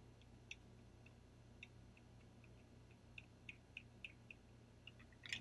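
Near silence over a low steady hum, with faint, irregular small clicks as a microneedle derma roller is rolled over the skin of the cheek; a slightly louder cluster of clicks comes near the end.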